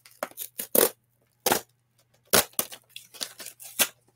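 Cardboard mailer being torn open by hand, a strip ripped off it in several short, sharp rips.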